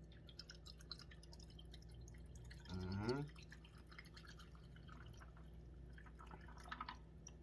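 Close-up eating sounds: small wet clicks and smacks of chewing sushi scattered throughout, with a short rising hum from the eater about three seconds in, the loudest sound.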